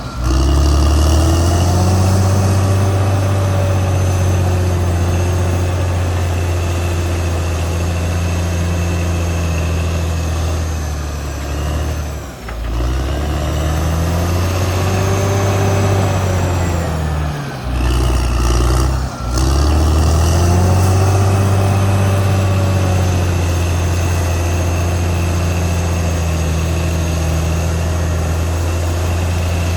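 Caterpillar D6R XL crawler bulldozer's diesel engine running steadily under load, with fainter whining tones that rise and fall above it. The engine note dips briefly about twelve seconds in and twice more around eighteen and nineteen seconds.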